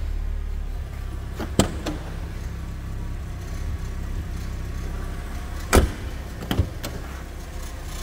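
Clunks and clicks from the doors of a 1990 Volkswagen Golf being opened: a pair of light latch clicks about one and a half seconds in, the loudest clunk near the six-second mark, then two lighter knocks, over a steady low hum.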